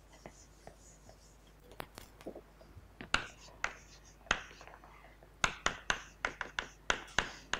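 Chalk writing on a blackboard: sharp taps and scratches of the chalk stick. They begin about three seconds in and come in quick succession over the last couple of seconds.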